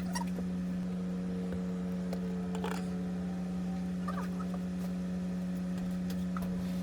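Steady low electrical or mechanical hum, with a few faint clicks and taps over it.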